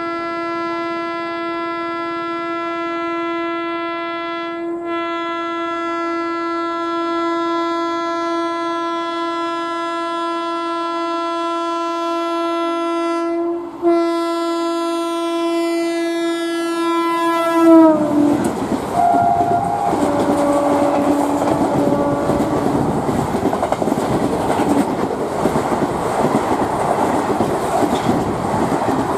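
WAP4 electric locomotive's horn sounding one long steady blast, broken twice for a moment. About two-thirds of the way through it drops in pitch as the locomotive passes, with a few short lower horn notes just after. The express then speeds past, its coaches rushing by with wheels clattering over the rail joints.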